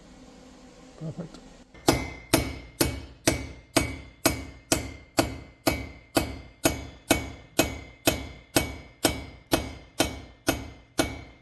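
Evenly paced metal hammer blows, about two a second, each with a short metallic ring, driving a new valve guide into the cylinder head of a Porsche 911SC flat-six. The blows start about two seconds in.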